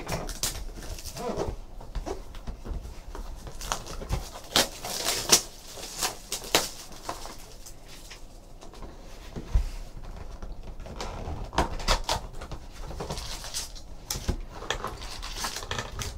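Plastic shrink wrap being pulled off a Panini Titanium hockey card box and the cardboard box handled and its lid opened: irregular crinkles, rustles, scrapes and small taps.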